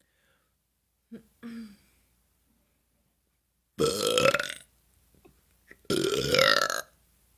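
A woman belching twice, two long loud burps about two seconds apart, each rising in pitch, brought up by the carbonated LaCroix sparkling water she is drinking. About a second in there are two short, softer sounds before the burps.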